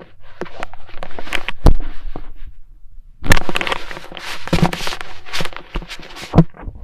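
Stethoscope chestpiece rubbed and knocked against skin or the microphone: scratchy crackling with several sharp thumps at uneven intervals, not a regular heartbeat rhythm.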